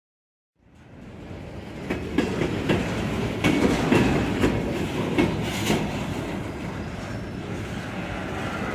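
Train rolling by, its wheels clicking over the rail joints in an uneven run of sharp clicks over a steady rumble. The sound starts from silence just after the start and swells over the next second or so.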